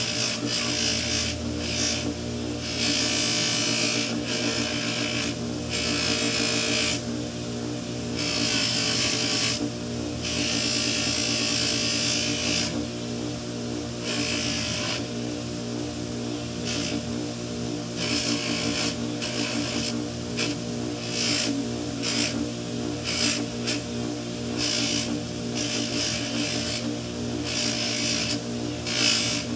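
Electric bench buffer's motor running with a steady hum, as a tobacco pipe is pressed against its carnauba-wax-loaded cotton buffing wheel. Each pass gives a hissing rub lasting one to three seconds, repeated many times as the wax coat is buffed on.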